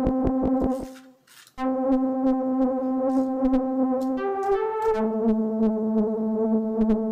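Teenage Engineering OP-1 synthesizer playing sustained notes from its keys. A held note cuts off about a second in, then a held note and chord follow, changing to a lower bass note with new upper notes about four to five seconds in. A synth patch is being auditioned while it is tweaked.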